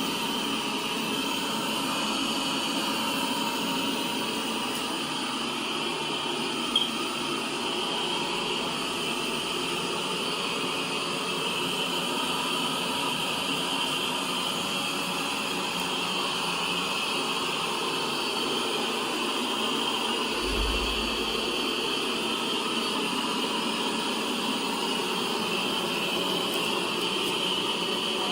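Lefant M3 robot vacuum running steadily at suction, a constant fan whine with a hiss, while it re-cleans powder from the floor. A single sharp click comes about seven seconds in, and a brief low bump about twenty seconds in.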